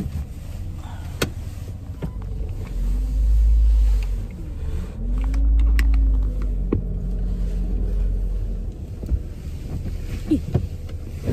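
Inside a car cabin: low engine and road rumble from the moving car, swelling twice, with an engine note that rises and falls each time.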